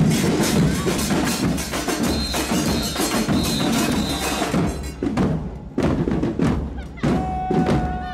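Street percussion band of bass drums with cymbals mounted on top and snare drums, playing a loud, dense marching rhythm that breaks into separate strikes with short gaps about five seconds in. A steady held tone joins near the end.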